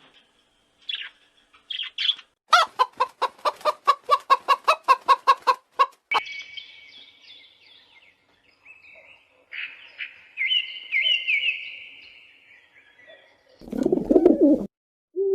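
Chickens calling: a rapid run of about six clucks a second, then high, thin peeping, with one lower call near the end. This fits a hen clucking to her chicks and the chicks peeping back.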